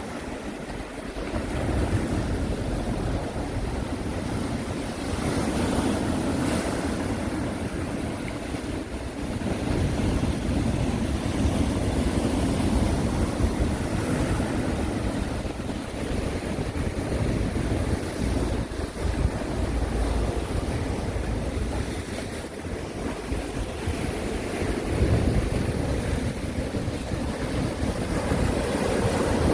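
Sea waves washing onto the shore in a continuous surf that swells and eases every few seconds, with wind rumbling on the microphone.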